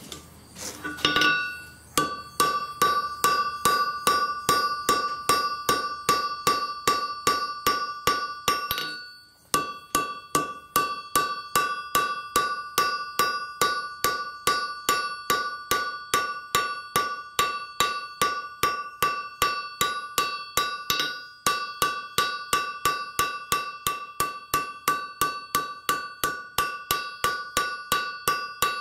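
Blacksmith's hand hammer striking red-hot file steel on an anvil in a steady rhythm of about two to three blows a second, each blow leaving a ringing anvil tone. The hammering stops briefly about nine seconds in, then resumes at the same pace.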